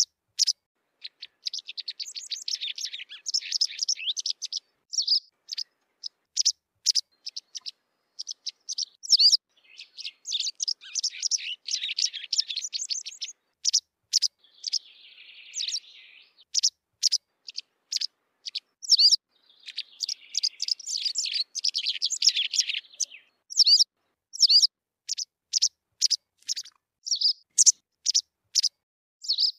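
White wagtail calling and singing: repeated sharp, high chirps between runs of rapid twittering song.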